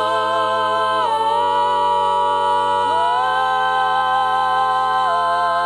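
A cappella gospel vocal harmony holding one long sustained chord, with a deep bass voice underneath and vibrato in the upper voice at first. The chord shifts about a second in and again about three seconds in, the bass dropping lower at the second change.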